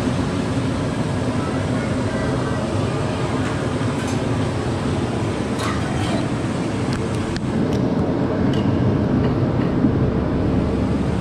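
A steady, low rumbling din with a few short clinks of a metal ladle and spoon against ceramic bowls. The din grows a little louder after about eight seconds.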